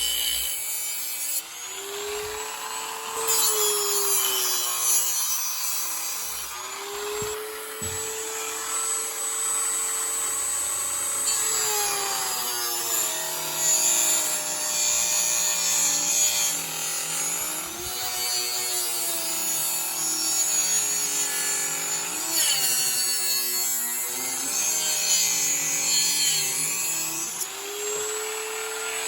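Dremel rotary tool grinding into pine wood. Its whine sags in pitch as the bit bites and climbs back as it eases off, over and over, with a gritty rasp of wood being cut.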